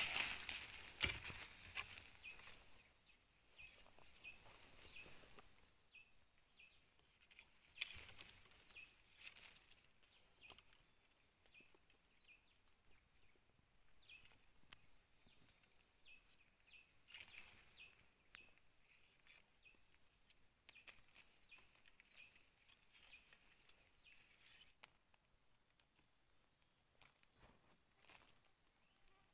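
Faint rural ambience: an insect's fast, high pulsed trill and many short repeated bird chirps, with scattered rustles and clicks, the loudest a rustle right at the start. The trill fades out about three-quarters of the way through.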